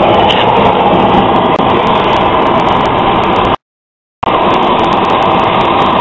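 Oxy-acetylene brazing torch flame hissing loudly and steadily on a copper refrigerant line joint. The sound is broken by a half-second gap of silence just past halfway.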